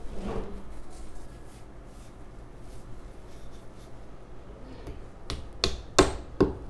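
Claw hammer tapping a plastic wall plug into a drilled hole in the wall: four short, sharp taps in the last second and a half, the third the loudest.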